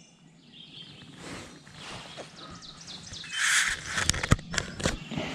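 Quiet outdoor ambience with faint bird calls, then a brief hiss and a few sharp clicks near the end.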